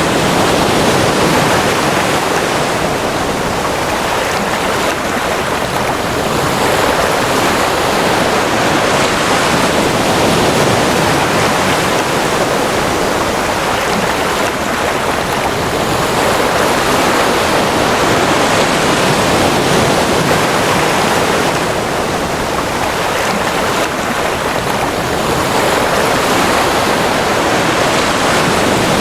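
Ocean surf: a loud, steady wash of breaking waves, swelling and easing slowly every several seconds.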